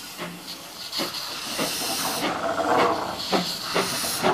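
Darjeeling Himalayan Railway B-class 0-4-0 tank steam locomotive starting away, with slow exhaust chuffs about two a second over a steady hiss of steam from its open cylinder drain cocks.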